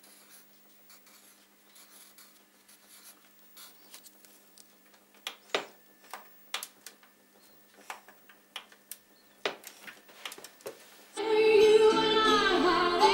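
Handwriting on a lined paper notepad: quiet scratching with scattered sharp ticks and taps of the writing tip. About eleven seconds in, a song with a singing voice starts suddenly and loudly.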